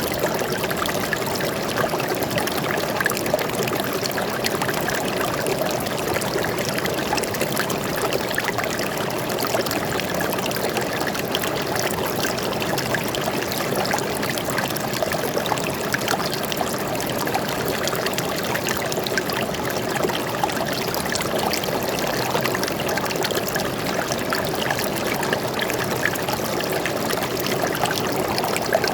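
Water flowing and trickling steadily over rocks in a forest stream, an even, continuous burble.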